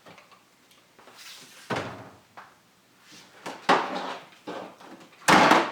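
Power-tool polishers being handled and set down on a hard surface: a few knocks and scrapes, with a louder thud near the end.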